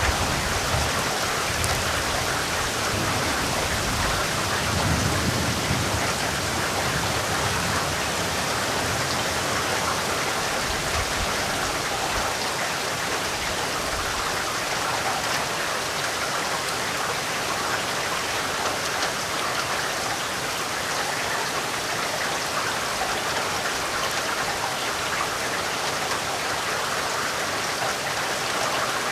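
Steady heavy rain falling. A low rumble of thunder underneath dies away about twelve seconds in.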